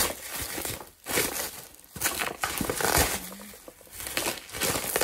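Packaging crinkling and rustling in irregular bursts as a package is unwrapped by hand.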